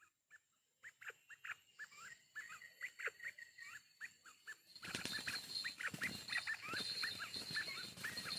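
Forest quail calling: a quick run of short, clipped calls, several a second, faint at first and louder from about five seconds in. A thin steady high tone runs under the louder part.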